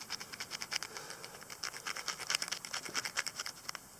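Quick, irregular scratching as a small wooden pick scrapes caked soil off the back of a freshly dug copper large cent held in a gloved hand.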